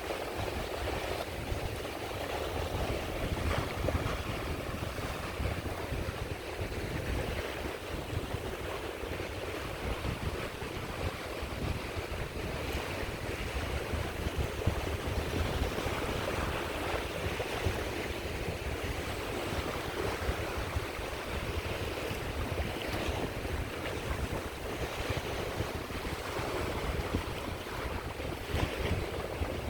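Sea waves washing on a shore: a continuous surf wash that swells and eases every few seconds, with wind rumbling on the microphone underneath.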